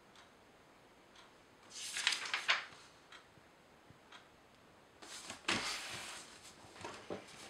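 Paper rustling as textbook pages are turned and the book is handled on a wooden desk: two short rustles, about two seconds in and again about five seconds in, with a few light taps in between.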